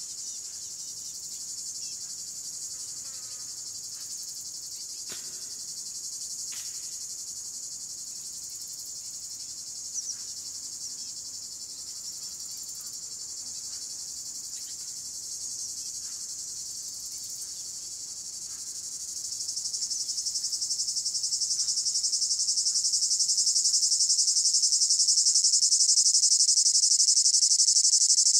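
High, dense cricket-like chirring from a dance score, steady at first, then swelling louder from about two-thirds of the way through. A few faint ticks sound beneath it in the first half.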